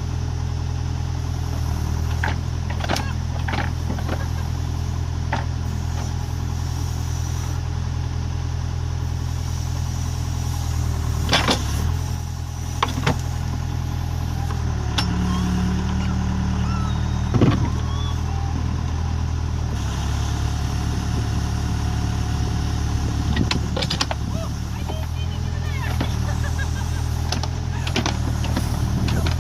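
Case 580SK backhoe's Cummins four-cylinder diesel running steadily, its note shifting several times as the hydraulics are worked while digging. A few sharp knocks come through, the loudest a little past halfway.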